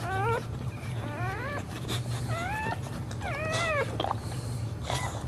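Boxer dog whining: four short, high cries that rise and fall in pitch, over a low steady hum.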